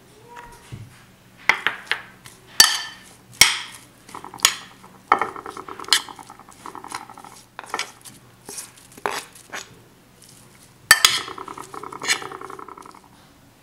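Metal spoon stirring chopped vegetables in a ceramic baking dish: sharp clinks of the spoon against the dish, with two stretches of rapid scraping, the second near the end.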